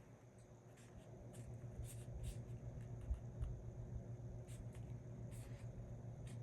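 Faint rustling and light scraping of paper as the pages of a small glued paper book are handled and pressed down, with scattered soft ticks over a low steady hum.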